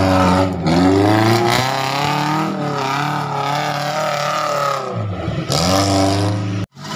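Engine of a modified Suzuki Jimny off-road 4x4 under load as it climbs a rocky dirt trail, revving up and down so its pitch rises and falls repeatedly. The sound cuts out briefly near the end.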